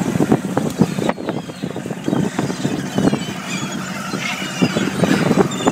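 A small fishing boat's machinery running with a steady low hum, under a rapid, irregular clatter of slaps and knocks as a net full of small fish is hauled over the rail. A few short high squeaks come about four seconds in.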